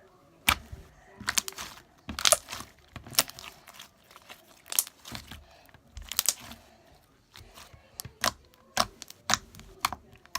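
Hands squishing and stretching slime, making sharp irregular pops and crackles, some coming in quick clusters.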